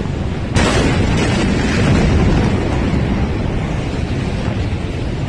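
The Beirut port ammonium nitrate explosion: over a loud ongoing rumble, a sudden heavy boom hits about half a second in, followed by a deep rumble that slowly fades.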